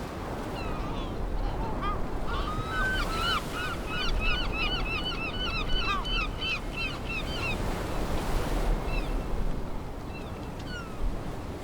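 A flock of birds calling in quick, repeated short notes over a steady background rush, the calls thickest in the middle and thinning out toward the end.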